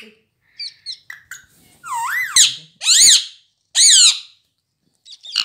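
Rose-ringed (Indian ringneck) parakeet vocalizing: a few short high chirps about half a second in, then three loud, wavering calls about two, three and four seconds in, and more chirps near the end.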